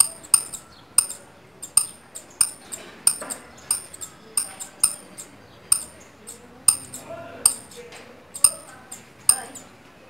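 Saffron finch calling at the nest: a steady run of short, sharp, high chip notes, about two or three a second.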